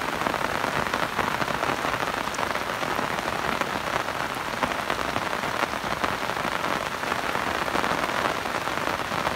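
Steady rain falling on the surface of a shallow, stony river and its grassy banks, an even hiss of countless drops with no let-up.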